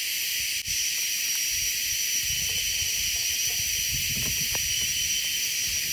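Steady high hiss of a jungle insect chorus with a thin continuous whine on top, over soft low rustling as a fish is worked free of a nylon gill net by hand.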